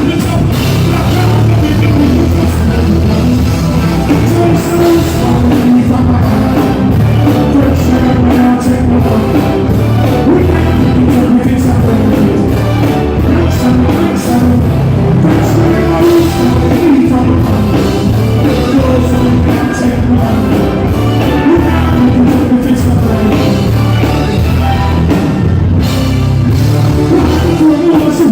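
Loud live band music with heavy bass and drums, and a singing voice over it.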